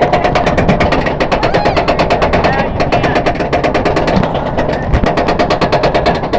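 Roller coaster train climbing a chain lift hill: rapid, even clacking, about nine clicks a second, over a steady hum.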